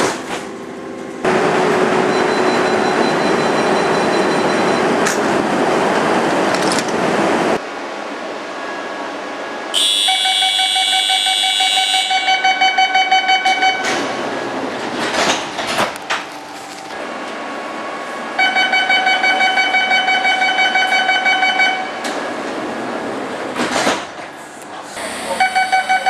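Train door-closing warning signals: electronic beeping tones sound several times, a high loud beep about ten seconds in running into fast pulsing beeps, a steady beeping tone later, and fast pulsing beeps again near the end. Before them comes several seconds of loud rushing train noise.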